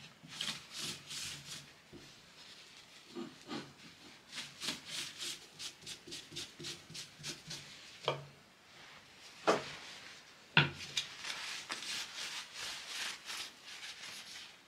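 Foam brush and cloth rag rubbing over a wooden board in quick repeated strokes, spreading and wiping off wood glaze. A few sharp knocks around the middle, two of them louder than the rubbing.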